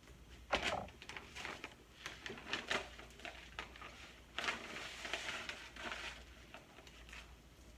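Crinkling and rustling of a pouch of dry quinoa being handled and opened, a string of short crackles with a longer, denser rustle about halfway through.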